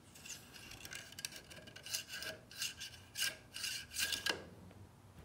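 A run of short scraping, rasping strokes, about three or four a second, starting about a second in and stopping about a second before the end.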